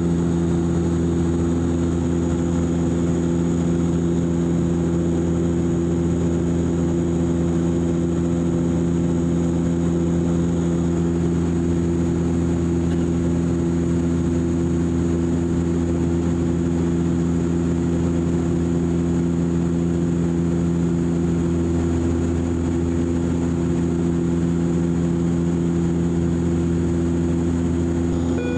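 Cabin drone of a De Havilland Canada Dash 8-400 in cruise flight: its two Pratt & Whitney PW150A turboprops and propellers give a steady low hum made of several fixed tones, with a thin high tone above, heard from inside the passenger cabin.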